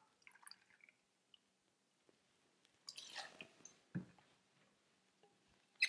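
Mostly quiet: a faint trickle of brandy poured from a glass decanter into a metal jigger, then a few soft clinks and a light knock about four seconds in as the measure goes into the steel shaker tin.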